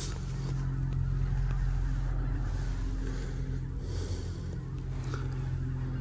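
A steady low engine hum, unchanging in pitch.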